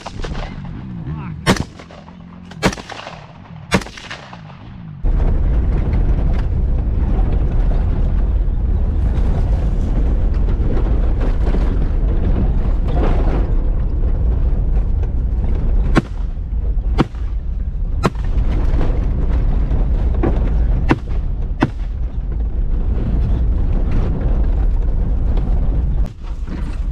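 Three gunshots fired from a vehicle, about a second apart, each with a short ringing tail. The vehicle then drives over rough ground with a loud low rumble, and about six more shots ring out roughly a second apart partway through.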